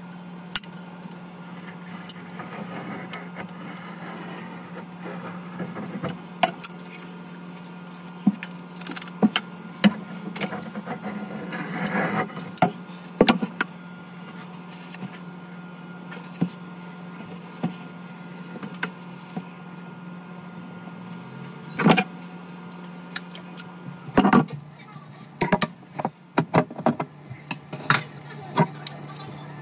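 Scattered clicks and knocks from handling a caulking gun and caulking a seam, over a steady low hum that drops slightly in pitch a little past the middle.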